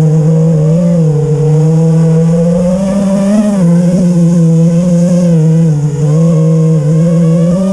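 FPV miniquad's four T-Motor F40 III 2600 Kv brushless motors and propellers whining in flight, the pitch swelling and dipping with the throttle, with a clear rise about three seconds in. The quad is one that the owner says still flies with vibrations after everything was changed.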